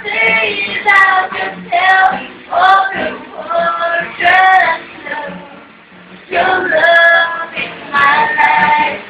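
Young woman and young man singing a song into microphones to an acoustic guitar, in phrases with a short pause about five seconds in.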